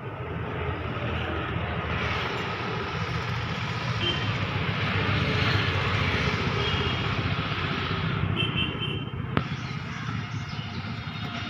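Rushing noise of a passing vehicle that swells in the middle and fades, with one sharp click about nine seconds in.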